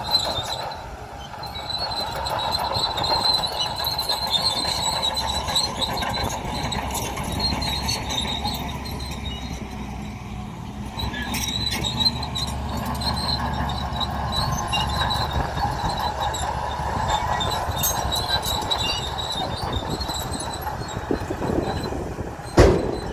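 Crawler bulldozer working: its diesel engine runs with a steady low rumble while the steel tracks squeal and clank, with one sharp bang near the end.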